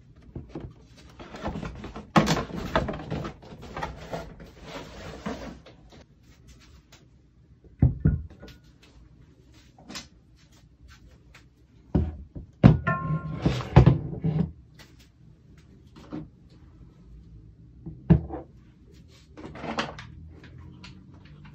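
Cardboard box and moulded pulp packaging being handled, with rustling and scraping for the first several seconds. Then come single knocks and thunks as espresso press parts are set down on a rubber mat, with a brief ringing clink about thirteen seconds in.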